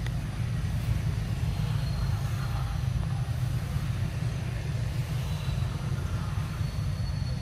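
Steady low rumble of wind buffeting the microphone, flickering in level, with no distinct events.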